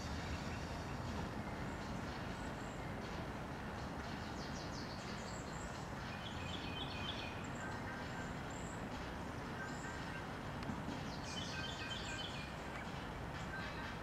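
Riverbank ambience: a steady, even rush of background noise, with small birds chirping in short runs of quick high notes, once about six seconds in and again about eleven seconds in.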